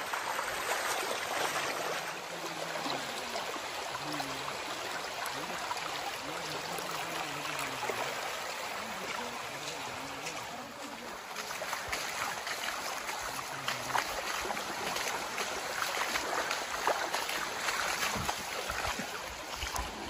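A shallow hill stream running steadily over its bed, a continuous rush of water, with faint voices in the background at times.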